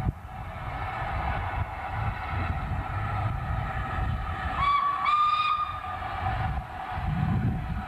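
Small steam tank locomotive hauling coaches toward the listener, its low running rumble under a steam whistle sounded about halfway through: a short blast, then a longer one.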